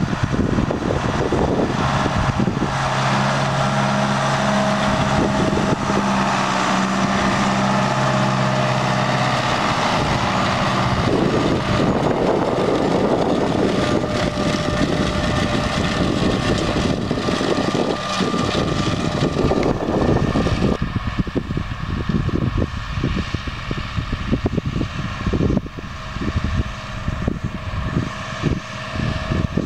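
Tractor engine running steadily under load as it pulls a precision maize planter across the field. The sound changes in character about twenty seconds in.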